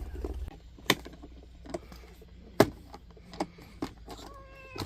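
Irregular clicks and light knocks of hard objects being handled and unpacked, about six in all, the loudest about two and a half seconds in.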